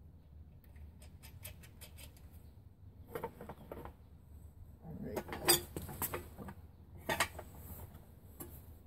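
Metal roller drive chain of an Ertl John Deere pedal tractor clinking and rattling as it is handled and laid over the sprockets. A few light ticks come first, then three short bursts of clatter, the loudest a little past the middle.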